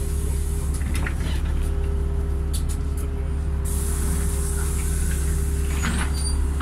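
Moving bus heard from inside the passenger cabin: a steady low engine and road drone with a constant hum, and a few light rattles.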